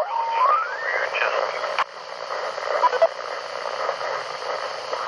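CommRadio CR-1a shortwave receiver's speaker giving band hiss and static mixed with garbled voices while it is tuned across the 40-metre band. A whistle steps upward in pitch during the first second as the tuning passes a signal, and a sharp click comes near two seconds in.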